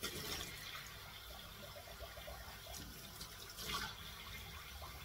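Water running from a kitchen tap into a stainless steel sink as a glass is rinsed under the stream, briefly louder about three and a half seconds in.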